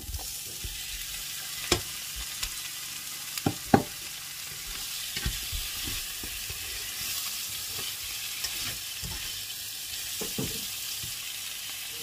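Chicken wings sizzling and frying with onions in a nonstick frying pan, stirred with a spatula. A few sharp knocks of utensils against the pan stand out, the loudest a little under four seconds in.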